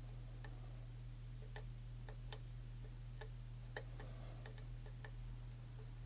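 Light, irregular metallic clicks of a lock pick working the pins inside a challenge lock cylinder, about a dozen faint ticks over a steady low hum.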